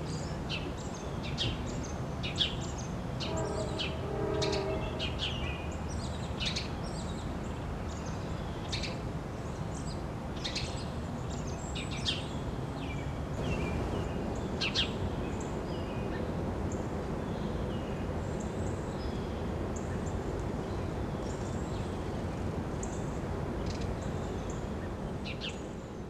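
Wild songbirds chirping outdoors: many short, sharp chirps in quick succession, thinning out in the second half, over a steady low rumble of outdoor background noise.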